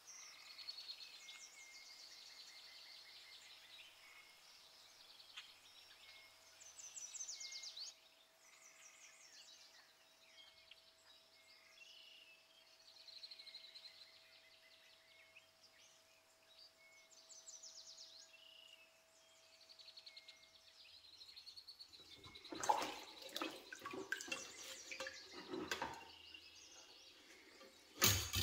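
Birds chirping in the background with a faint steady hum. About 22 seconds in, wet clattering and dripping as the cast iron waffle plate is handled and lifted out of a tub of liquid, then a sharp knock near the end.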